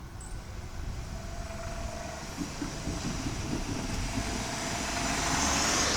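Road traffic: a motor vehicle's engine rumble and tyre noise growing steadily louder as it approaches.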